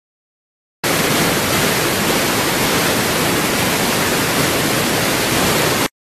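Loud, steady static-like hiss with no tone or rhythm in it. It starts suddenly about a second in and cuts off suddenly just before the end.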